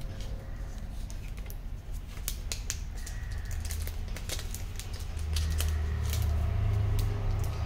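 Crinkling and clicking of the plastic protective wrap as it is handled and peeled off a new smartphone, in a quick run of sharp crackles from about two seconds in. A low rumble swells in the second half.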